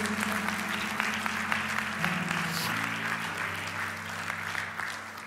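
Congregation applauding over soft sustained chords from the worship band; the clapping thins out toward the end.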